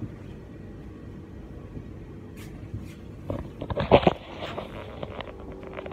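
Rustling and knocking of a phone being picked up and handled, loudest about four seconds in, over a steady low background hum.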